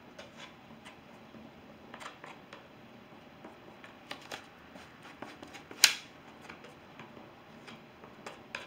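Palette knife dabbing and scraping oil paint onto a stretched canvas: scattered soft strokes and taps, with one sharper tap about six seconds in.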